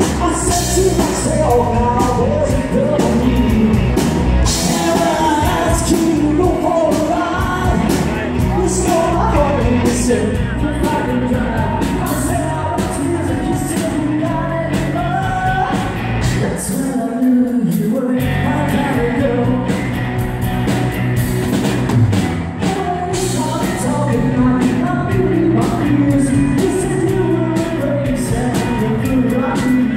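Live country band playing with a male lead singer, over drums, electric guitar and keyboard. A little past halfway the low end drops out for a moment, then the full band comes back in.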